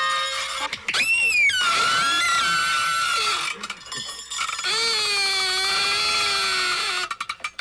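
Party noisemaker horns blown in several blasts with a buzzy, reedy tone. One swoops sharply up and back down before holding a high note, and a lower one wavers in pitch. A quick run of rattling clicks comes near the end.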